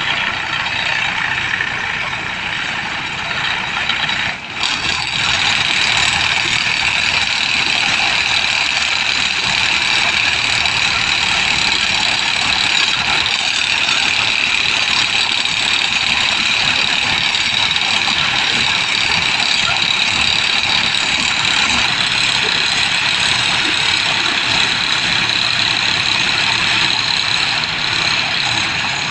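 Steady, continuous running of heavy machinery or a vehicle engine, with a brief dip about four seconds in.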